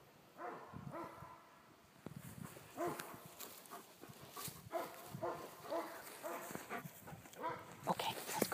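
A dog calling in a run of short, pitched cries. They come closer together in the second half, about two or three a second, and are loudest near the end.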